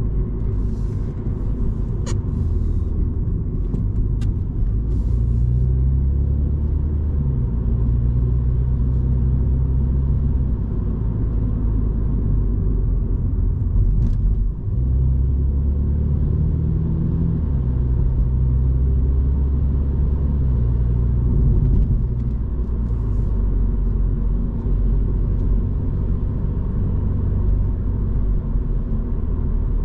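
Interior sound of a 2022 Mini Cooper S (F56) under way: its 2.0-litre turbocharged four-cylinder petrol engine pulls through the gears, its note rising in pitch and stepping down at each upshift, over a steady road rumble.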